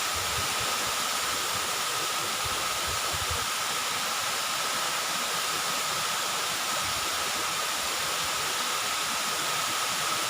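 Steady rushing roar of a waterfall, with a thin steady high tone over it and some low rumbling in the first three seconds or so.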